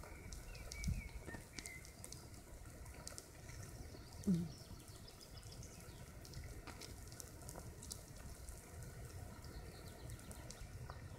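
Faint crackling sizzle of hundreds of wood ants scurrying over the dry needle thatch of their mound, heard as many tiny scattered clicks over a low rumble. A few faint bird chirps come in the first two seconds, and a brief low rising sound stands out about four seconds in.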